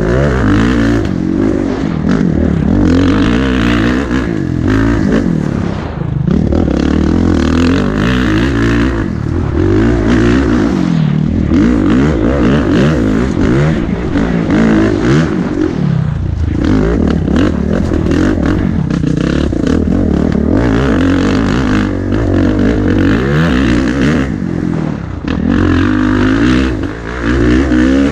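Kawasaki racing dirt bike's single-cylinder four-stroke engine ridden hard, revving up and dropping back over and over as it is shifted through the gears, easing off the throttle briefly a few times. Heard close from the rider's helmet, with wind noise and rattling over rough ground.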